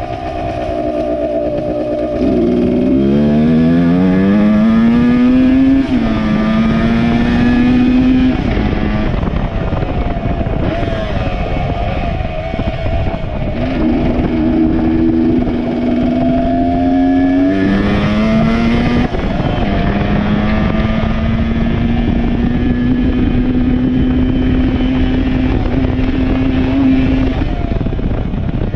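MX 100 dirt bike's small two-stroke engine running hard under way. The revs climb steeply a couple of seconds in, then hold high and steady, with brief drops in pitch at gear changes about six, fourteen, seventeen and nineteen seconds in.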